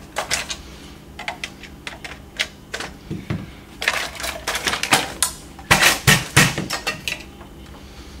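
Plastic parts of a Polaris 380 pressure-side pool cleaner clicking and knocking against each other as the unscrewed bottom is worked loose and handled. The clicks are irregular, with the loudest cluster about six seconds in.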